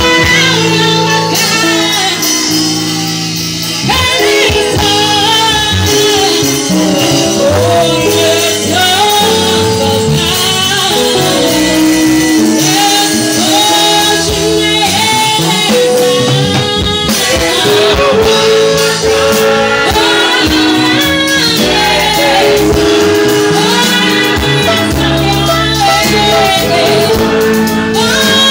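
Live gospel worship music: a woman sings a praise song through a microphone and PA, over a band with drums and keyboard.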